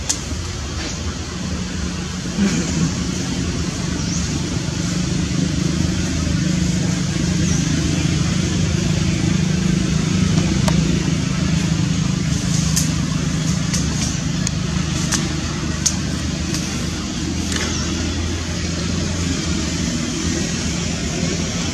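A steady low motor hum with a hiss above it, and a few short sharp clicks from about twelve to sixteen seconds in.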